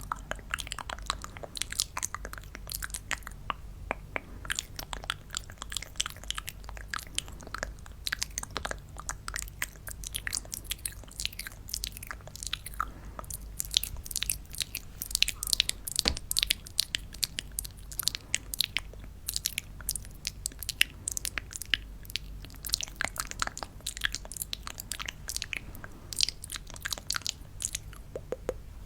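Close-miked crackling and crunching of a paper piñata and its candy: a dense, irregular run of small sharp clicks, busier in the middle and near the end.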